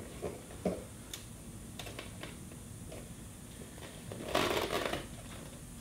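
Hands handling a motorcycle seat cowl with a selfie stick pushed through it: a few light clicks and taps, then a short rubbing crunch about four and a half seconds in as the cowl is pressed down into place.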